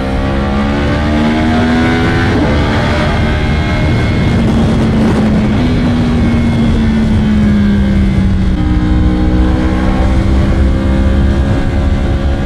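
Yamaha R1M's crossplane inline-four through an aftermarket exhaust, riding under load. The note climbs over the first couple of seconds, holds, eases down a little, then changes character about eight and a half seconds in, over a steady rush of wind and road noise.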